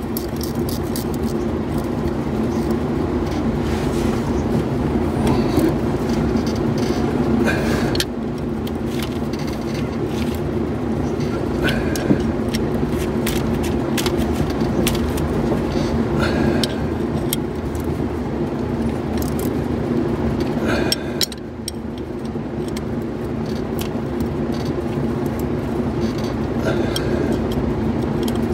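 Ratchet wrench clicking in short runs as bolts are snugged up, with a metallic clink every few seconds, over a loud steady hum.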